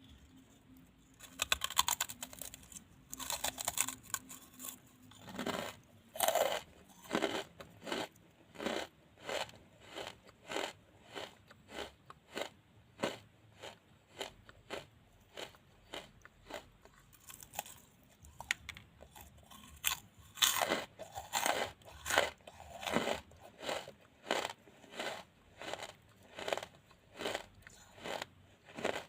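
Wood charcoal being chewed, a crisp crunch with each chew, coming evenly about once every 0.8 s after a few louder crackling bites in the first seconds.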